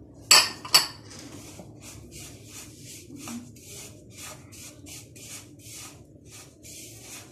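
A hand rubbing and mixing powdered milk with melted ghee in a plastic bowl: soft, crumbly rasping strokes, about two or three a second. Two sharp knocks come just before the mixing, in the first second.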